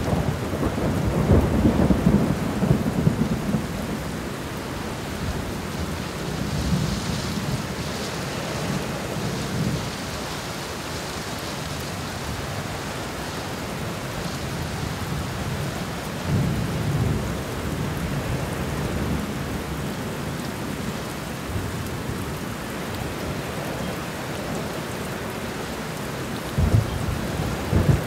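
A steady rushing hiss of water, with deep rumbling surges every several seconds, the strongest in the first few seconds and near the end.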